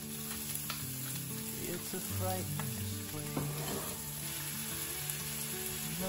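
Peeled shrimp sizzling in oil in a nonstick frying pan, a steady frying hiss with a few light clicks in the first few seconds; background music plays softly along.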